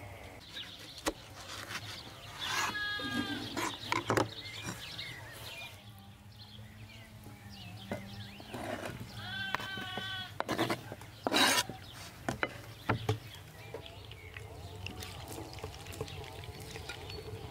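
A goat bleating twice, each a quavering call, with sharp knocks of a knife chopping on a wooden cutting board in between.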